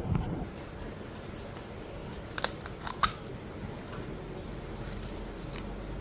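A few sharp clicks and snips of small objects being handled, clustered about two and a half to three seconds in, with fainter ones near the end, over quiet room noise.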